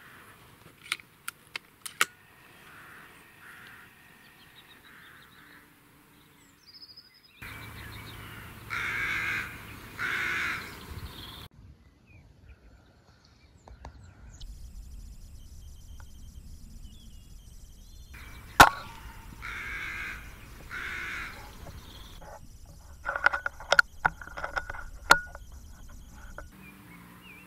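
Crows cawing from the trees in several separate runs of calls. About two-thirds through, a single sharp crack from the .25 Brocock pre-charged air rifle being fired, the loudest sound, followed by more cawing.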